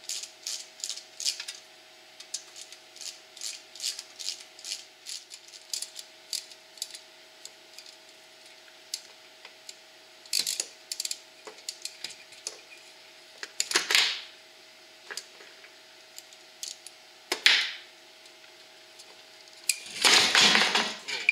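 Socket ratchet clicking as bolts are loosened on a Briggs & Stratton small engine, about two clicks a second for the first several seconds, then scattered clicks. A few louder clatters of metal parts and tools being handled, the longest and loudest near the end.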